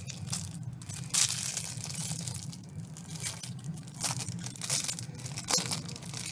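Plastic packaging crinkling and rustling in irregular bursts as it is handled, over a steady low hum.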